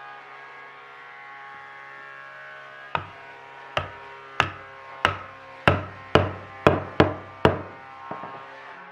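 About nine sharp hammer blows on wood, starting about three seconds in and coming faster toward the end, over a steady hum.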